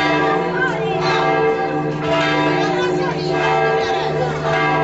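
Church bells ringing in an unbroken peal, with voices of a crowd over it.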